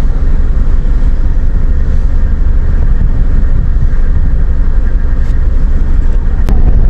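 Steady low rumble of a motor vehicle running, with one sharp click about six and a half seconds in.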